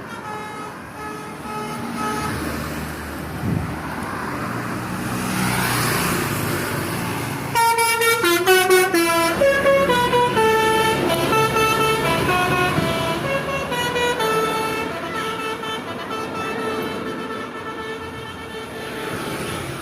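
A vehicle's telolet multi-tone horn plays a tune of stepped notes, starting loudly about seven and a half seconds in and running on until near the end. Before it, the vehicle's engine and road noise rise, with faint horn notes at first.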